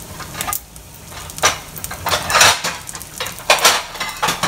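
Kitchenware clattering and scraping in about five short bursts, over a faint steady sizzle.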